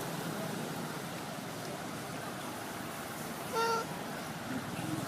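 A single short, high call from a monkey, lasting about a quarter of a second, a little past halfway through, over a steady background hiss.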